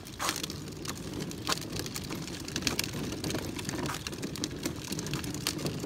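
Hard plastic wheels of a push-along toy ride-on car rolling over rough asphalt: a steady low rumble with a constant scatter of small clicks and rattles.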